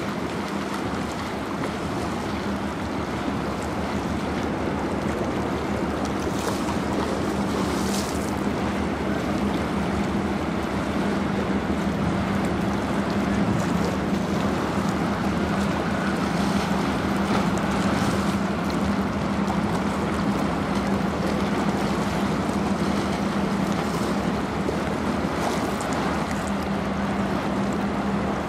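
Wind rushing over the microphone and choppy river water washing against a stone shore, with a steady low hum underneath.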